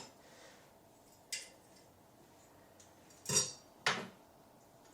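Metal light-fixture mounting hardware clinking and knocking as it is handled and fitted against the electrical box: one small tap, then two louder knocks close together a little past three seconds in.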